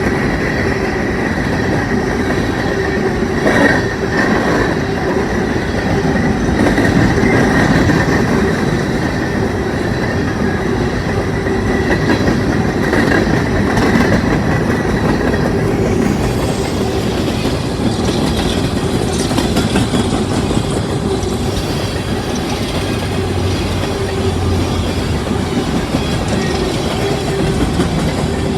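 Empty coal hopper cars of a long freight train rolling past, a steady loud rumble and rattle of steel wheels on the rails. A thin high tone rides over it and fades out about halfway through.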